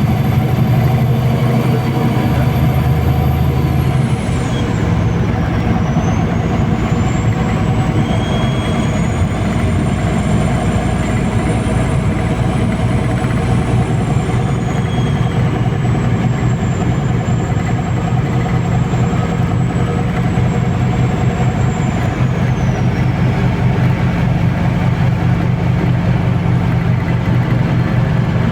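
MAZ-203 city bus on the move, heard from inside the cabin: its engine runs steadily under the noise of the ride, changing its low tone about four seconds in, with a faint high whine that drops, rises again and slowly drifts.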